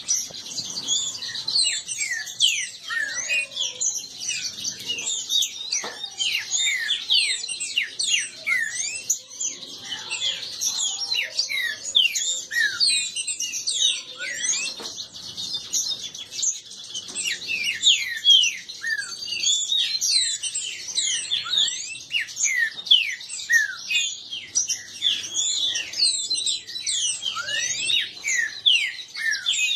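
Green-winged saltators (trinca-ferro) singing against each other in a song dispute: a dense, unbroken stream of quick high chirps and sweeping whistled notes from more than one bird, overlapping throughout.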